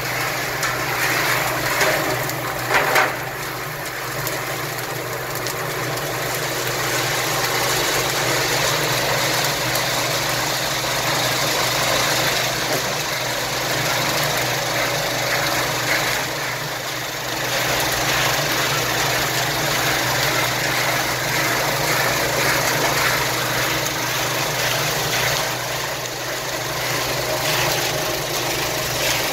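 Özstar OS-100 guided roasting machine running with a steady mechanical hum and hiss as its drum turns and roasted product pours out into the tray. A few short knocks sound about two to three seconds in.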